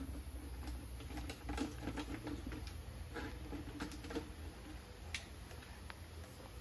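Scattered light clicks and rustles, irregular and unevenly spaced, over a steady low rumble.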